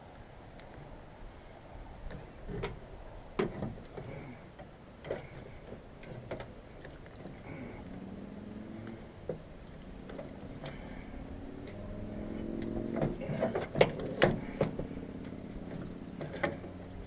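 Irregular knocks and clunks of a heavy lead-acid battery being shifted and pushed into a tight battery compartment, the loudest ones bunched together near the end. A low hum with several tones joins about halfway and grows louder.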